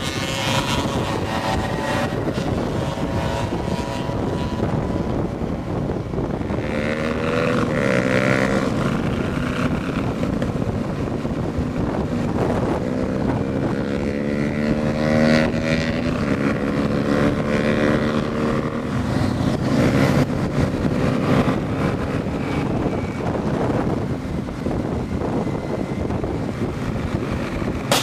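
Motorcycle engine running on the move, its pitch climbing several times as it accelerates and dropping back between, over a constant rush of wind on the microphone.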